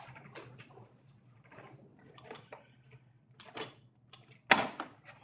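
A bicycle wheel and tools being handled: scattered light clicks and rattles, with one sharp knock about four and a half seconds in.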